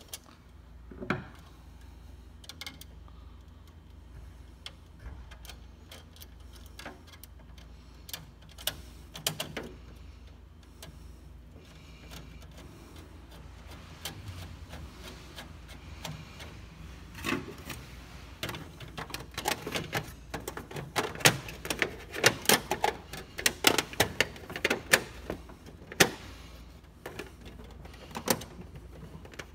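Plastic and metal covers of a Ricoh copier being handled and fitted back on, with scattered clicks and knocks that come thick and loud in the second half. A low steady hum runs underneath.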